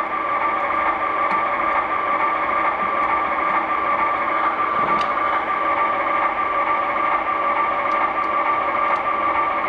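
Steady engine hum from an HO-scale diesel locomotive's DCC sound decoder idling through its small speaker, thin and without bass. A faint click comes about halfway through.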